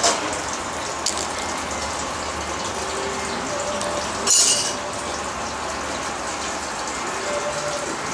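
A short, sharp, hissy sneeze about four seconds in, with another just as it begins, over a steady rushing hiss.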